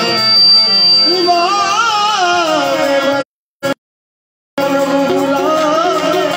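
Qawwali: a male voice sings an ornamented, wavering line over harmonium accompaniment. A little after halfway the sound cuts out completely for about a second, with a brief blip in between, then the music resumes.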